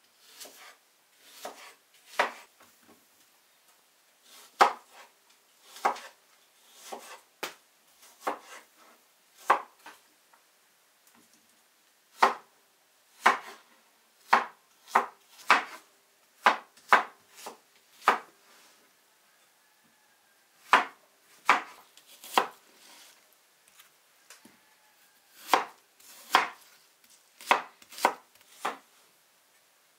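Knife chopping food on a cutting board in slow, irregular strokes, roughly one a second, with a few short pauses.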